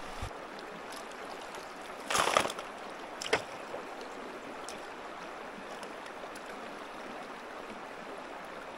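Steady rush of running creek water, with a brief louder noise about two seconds in and a single sharp click about a second later.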